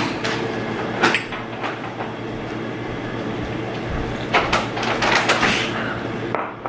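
Kitchen clatter over a steady hum: a sharp click about a second in, then a run of knocks and clacks between about four and six seconds.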